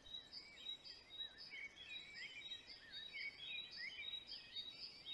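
Faint background birdsong: small birds chirping in short, wavering high notes, over a steady high-pitched tone.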